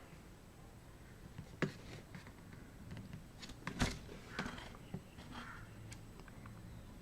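A few light clicks and taps from handling a laptop's plastic keyboard panel while its plastic studs are pressed and heat-staked with a soldering iron. The two loudest taps come about a second and a half in and near four seconds in.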